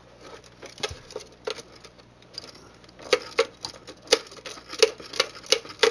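Hands and a tool working on a DirecTV box's plastic housing: scattered taps and clicks, then from about three seconds in a steady clicking, about three a second.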